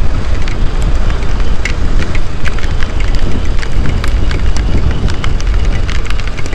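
Wind rushing over the microphone of a motorcycle moving through a heavy rain shower, with raindrops striking the camera as many sharp ticks and crackles.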